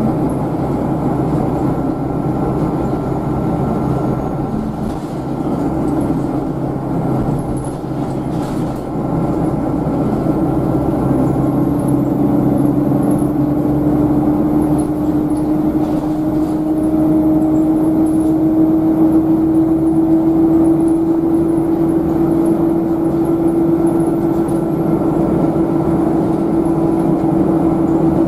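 Volvo B7RLE bus driving, heard from inside the rear of the empty cabin: steady engine and road noise, with a whine that rises slowly in pitch from about ten seconds in as the bus gathers speed.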